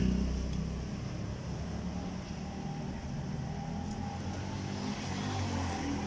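A motor's steady low hum, easing off in the first second and swelling a little near the end.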